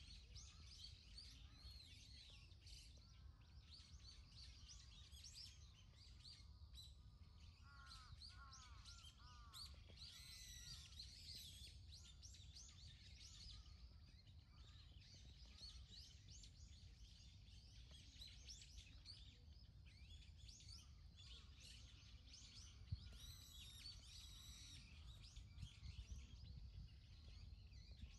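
Faint chorus of small songbirds chirping and twittering, many quick rising and falling calls overlapping, over a low steady rumble. A single sharp tick about two-thirds of the way through.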